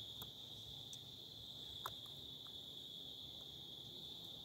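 Crickets trilling steadily at one high pitch, with a single faint click just under two seconds in.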